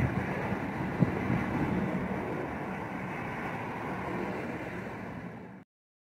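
Wind buffeting the microphone over a low outdoor rumble, with a single short bump about a second in. The sound cuts off abruptly near the end.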